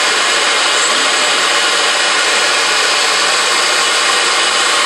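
Spindle of a four-spindle CNC router milling a wood panel: a loud, steady cutting hiss with a faint high whine.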